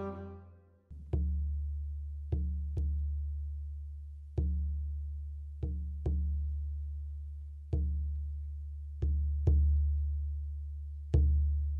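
Large hand-held frame drum struck slowly, each beat a deep boom that rings on and fades, in a pattern of single beats alternating with pairs of quick beats. Orchestral string music fades out just before the first beat.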